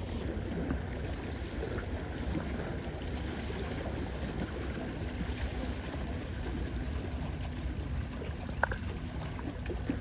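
Steady rumble of water and wind at the waterside, with one sharp click or tap about eight and a half seconds in.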